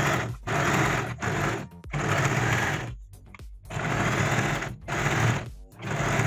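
Usha Janome Dream Stitch domestic electric sewing machine stitching through layered fabric, run in short bursts of about half a second to a second with brief stops between them.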